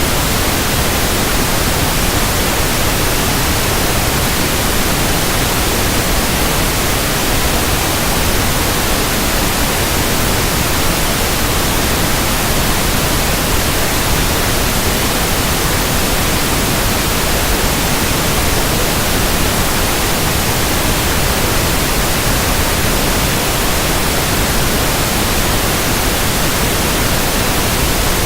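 Pink noise test signal for checking a speaker: a steady, even hiss across the whole range of pitch that does not change in level.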